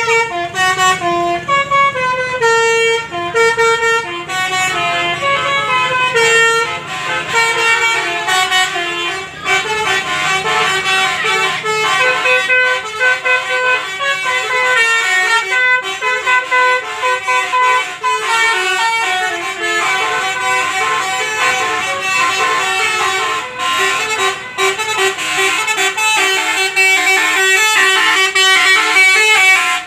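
Basuri telolet bus horn playing a quick, continuous melody of short notes, loud throughout.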